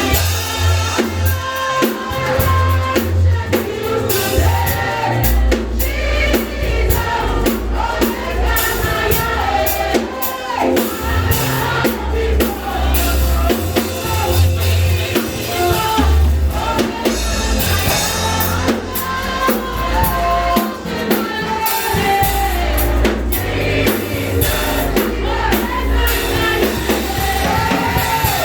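Worship music: singing over a drum kit and bass, with a steady beat.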